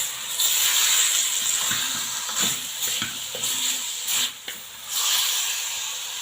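Tomatoes sizzling in hot oil in a cooking pot: a steady frying hiss with a few faint knocks.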